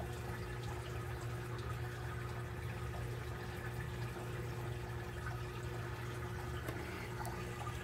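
Aquarium filter running: a steady low hum with water trickling and bubbling.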